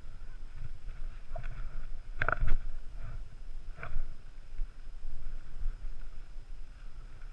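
Wind rumbling on a body-worn camera's microphone, with a few short huffs of hard breathing and knocks from climbing gear on rock in the first four seconds, the loudest about two seconds in.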